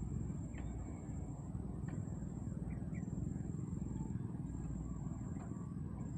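Wind buffeting the microphone, a steady low rumble, with a few faint short chirps and a thin steady high tone behind it.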